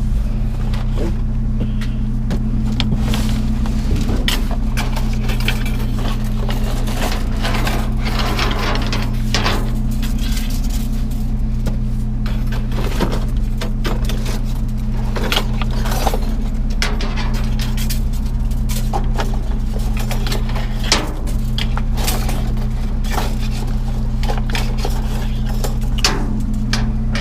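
Scrap and junk being rummaged through by hand: scattered clinks, knocks and scrapes of metal and glass items, over the steady low hum of an idling engine.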